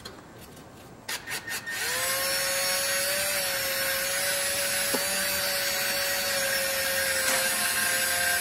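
Cordless drill given a few short trigger pulls about a second in, then running steadily at one pitch, transfer-drilling a small hole through a hang tab into an aluminium wing rib.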